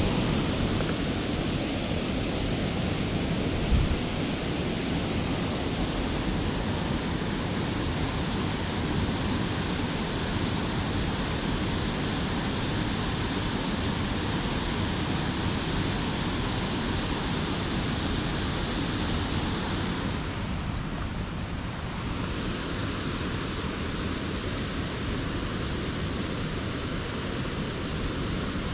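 Steady rush of a mountain stream flowing hard, an even hiss of water. A single thump about four seconds in.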